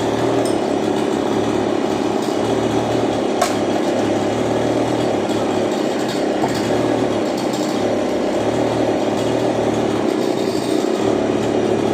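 Chainsaw engine running steadily, with a single sharp tick about three and a half seconds in.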